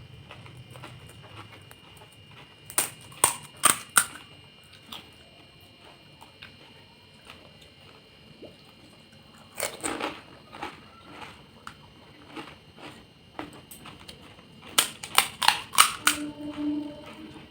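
Crisp fuchka (panipuri) shells cracking and crunching in three quick bursts of sharp cracks, as the hollow fried puris are broken open and bitten.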